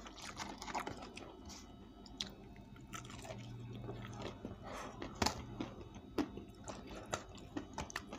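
Close-up chewing of fried chicken, with irregular crunches and clicks; a sharper crack comes about five seconds in.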